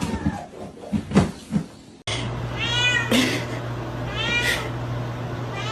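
A domestic cat meowing twice, each call rising and then falling in pitch, over a steady low hum. Before the calls, in the first two seconds, there are a few short knocks.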